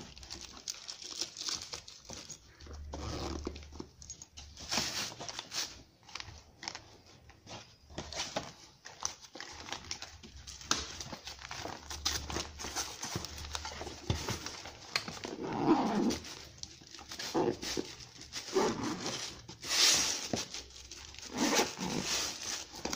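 Handling of a nylon first-aid pouch as it is packed and zipped shut: irregular rustling and scraping of fabric and contents, with a few louder zipper strokes.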